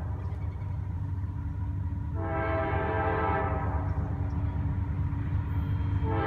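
Approaching CSX freight locomotive's air horn: one long blast starts about two seconds in and another begins near the end, over a low steady rumble that grows louder as the train nears.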